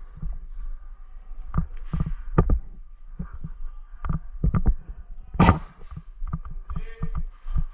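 A run of irregular thumps and sharp knocks, more than a dozen, uneven in spacing, with the sharpest and loudest about five and a half seconds in.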